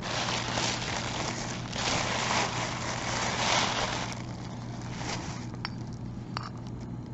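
Tissue paper rustling and crinkling as it is handled around a porcelain box for about four seconds, then quieter, with a couple of light clicks.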